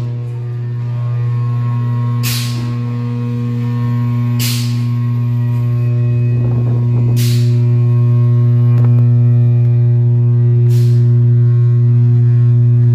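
Pipe-flushing machine running with a steady, loud low hum. Short hissing bursts recur about every two to three seconds as it flushes a bus air-compressor discharge pipe.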